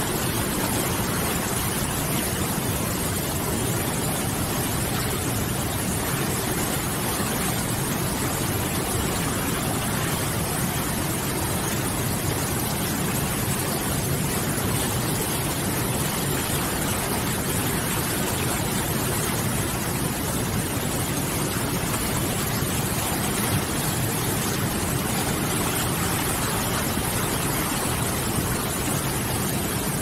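Whitewater rapids of a fast mountain river rushing over boulders: a steady, dense hiss of water with no breaks.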